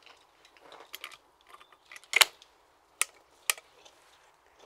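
Hammer shotgun being closed and readied to fire: a few light metallic clicks, then a louder snap about two seconds in as the gun shuts, then two sharp clicks about half a second apart as the hammers are cocked.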